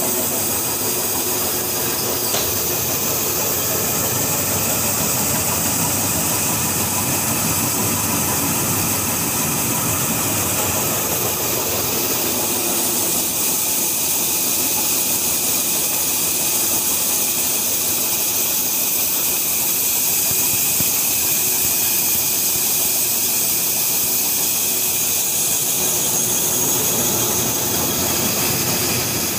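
Belt-driven cotton-cleaning machine running steadily, its toothed drums stripping cotton from the boll husks: a constant loud mechanical din with a hiss, even throughout.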